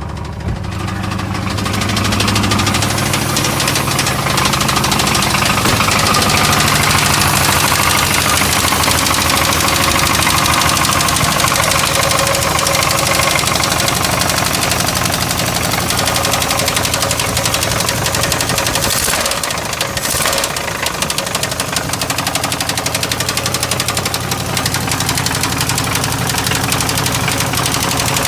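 1989 Chevy Caprice Classic engine running with a rapid, steady knocking that the owner hears every time it is started and cannot yet place. The sound grows louder over the first couple of seconds and dips briefly about two-thirds of the way through.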